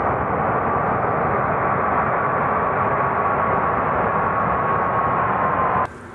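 Jet engines of a Ryanair Boeing 737 running at high power on the runway: a loud, steady roar with a high whine that sags slightly in pitch. It cuts off abruptly near the end to a much quieter background.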